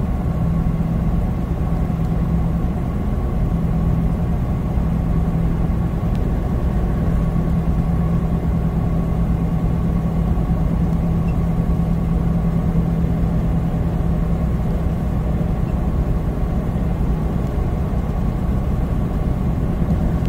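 Semi truck's diesel engine and tyre noise heard inside the cab while cruising at highway speed: a steady low hum that holds an even pitch and level throughout.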